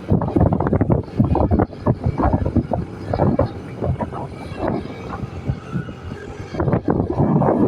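A vehicle running, covered by heavy, gusty wind buffeting on the microphone that grows stronger near the end.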